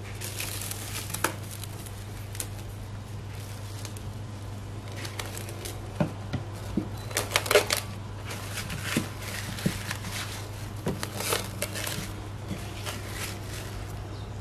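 Plastic cling wrap crinkling and crackling in irregular bursts as it is pulled and stretched over a glass bowl, over a steady low hum.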